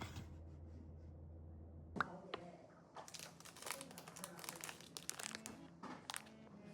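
Crinkling and crackling of packaging being handled and torn open, in a quick irregular run of small crackles after a single click.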